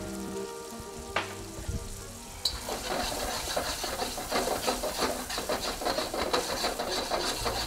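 Shrimp, chili and scallions sizzling in a hot wok while a metal spoon stirs and scrapes them in quick strokes. The sizzle starts suddenly about two and a half seconds in; before it there is one click.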